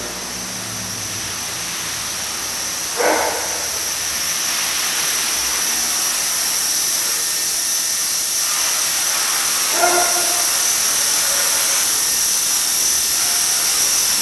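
Align T-Rex 450 SE electric RC helicopter in flight: a steady high-pitched whine of the electric motor and gears over the hiss of the spinning rotor blades. It grows gradually louder as the helicopter comes close.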